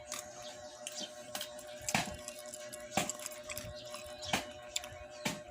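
Close-up eating sounds of someone chewing mango dipped in sugar: wet mouth smacks and clicks, about one a second, over a faint steady hum.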